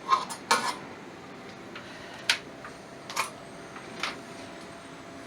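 Light, irregular clacks from the folds of a machine axis's bellows cover, about five in all, over a steady faint hiss.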